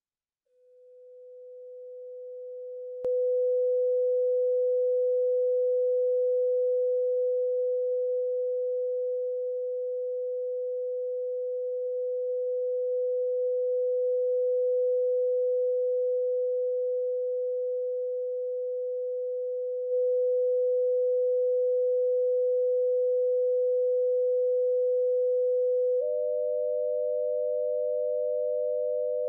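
Steady 500 Hz sine tone from a software tone generator, fading in and stepping louder with a click about three seconds in, its level drifting slightly as the stereo pan is changed. Near the end a second steady tone a little higher joins it, the right channel offset by 100 Hz to make a binaural beat.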